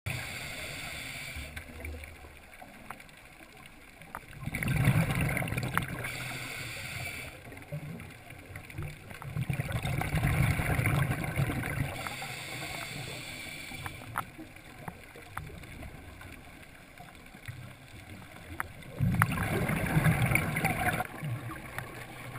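Scuba diver's exhaled bubbles from a regulator, heard underwater: three bursts of bubbling and gurgling, each two to three seconds long, over a low steady hiss.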